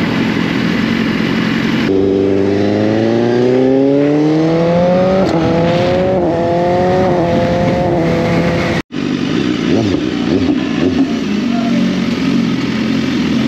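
BMW S1000RR's inline-four engine running steadily, then accelerating with its pitch climbing and two quick upshifts. After a sudden break it runs slowly and unevenly.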